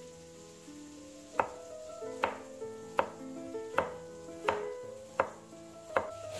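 Chef's knife slicing peeled carrots into rounds on a wooden cutting board, a sharp knock each time the blade hits the board, about one every three-quarters of a second, starting about a second and a half in. Soft background music plays underneath.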